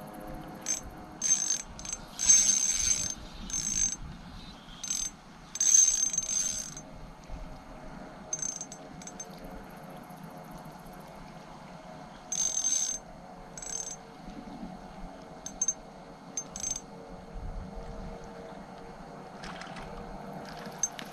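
Spinning reel being cranked in short, irregular spurts, a high whirring wind of the line, as a small metal jig is lifted and dropped for horse mackerel. Most spurts come in the first several seconds and a few more about midway, over a faint steady hum.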